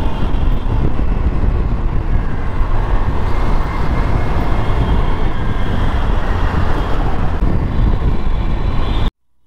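Steady road noise from riding through traffic, a dense low rumble of vehicles moving along the street, which cuts off suddenly near the end.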